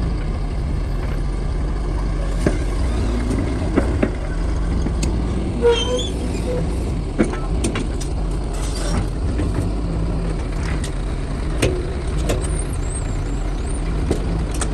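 Heavy diesel earthmoving machinery running steadily, with scattered short knocks and clanks. There is a brief hiss about nine seconds in.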